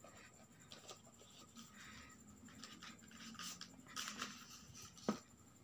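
Faint scraping and rustling of a smartphone's cardboard retail box being opened and its contents handled, with a few soft clicks and a light knock about five seconds in.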